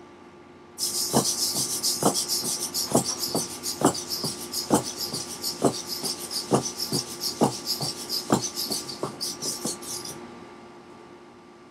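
Hexapod robot's 18 Tower Pro MG90S micro servos whirring as it walks through nine cycles of a right turn, its feet tapping on a hardwood floor: nine strong taps about 0.9 s apart with lighter taps between. The whirring starts about a second in and stops shortly before the end.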